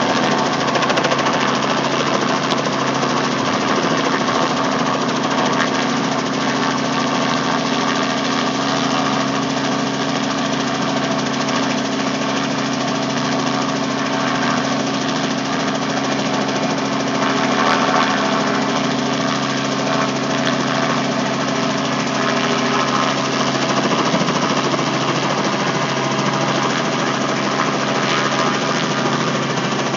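Robinson R44 helicopter hovering low overhead: steady rotor chop over the drone of its piston engine, holding an even pitch and level.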